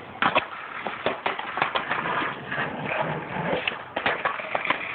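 Skateboard on concrete: a string of sharp clacks and snaps as the board is popped and slaps the ground, the loudest about a quarter second in, over a rough rolling noise.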